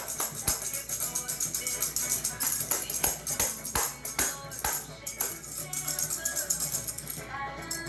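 Tambourine shaken rapidly and unevenly, its jingles rattling over a recorded song; the shaking stops shortly before the end.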